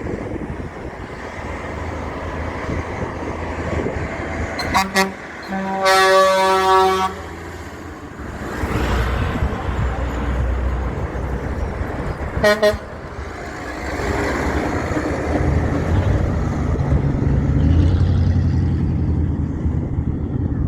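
Big trucks passing with horn blasts: two short toots about five seconds in, then one longer blast lasting about a second, and two more short toots about twelve seconds in. Truck engines and tyres run underneath throughout, with a louder engine rumble near the end as another truck goes by.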